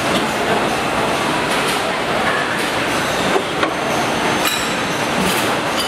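Double-colour EVA foaming press in operation, its mould platens moving, heard as a steady dense mechanical din. A couple of sharp metallic clanks come about three and a half seconds in.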